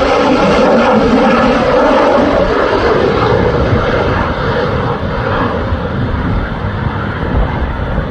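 Indian Air Force Su-30MKI fighter on landing approach with gear down, its twin AL-31FP turbofan engines giving a loud, steady jet noise. The noise fades somewhat from about three seconds in as the jet moves away.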